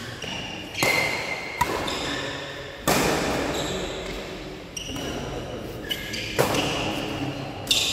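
Doubles badminton rally: sharp racket strikes on the shuttlecock, about five of them at uneven intervals, each ringing on in the echo of a large hall.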